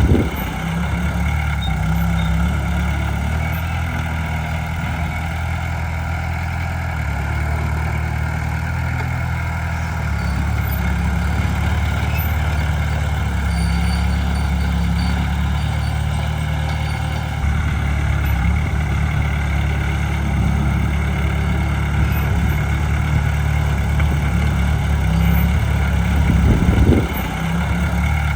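Heavy diesel engines of earthmoving machines running in a low, steady drone, their note shifting several times. A brief louder surge comes near the end.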